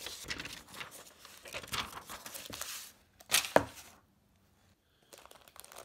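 Wrapping tissue paper crinkling and rustling as it is pulled open by hand. A single sharp knock comes about three and a half seconds in.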